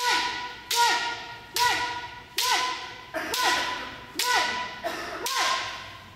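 Bamboo shinai strikes in kendo practice, landing in a steady rhythm about once a second, seven times. Each strike comes with a short shout that drops in pitch at its end.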